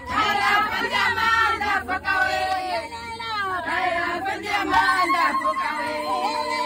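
A crowd of many voices singing together, with shouted calls over the song.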